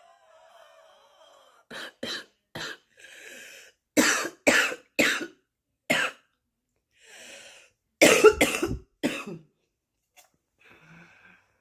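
A woman's smoker's morning cough: several fits of coughs, two to four at a time, with noisy breaths drawn in between. The hardest fit comes about eight seconds in.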